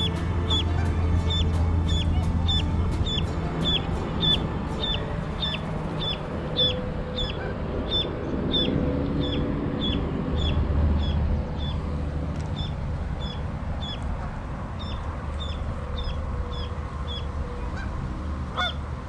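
A lone duckling peeping steadily, about two short high peeps a second: the distress calls of a chick separated from its mother.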